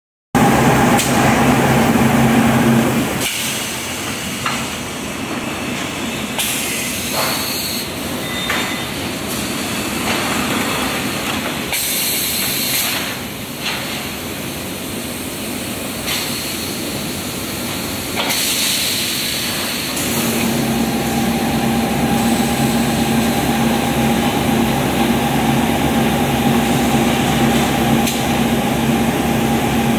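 Steel tube mill machinery running: a steady humming drone with rumbling and metallic clanks from hot tube moving along the roller conveyor, broken by several bursts of hissing steam. The hum drops away about three seconds in and comes back around twenty seconds in.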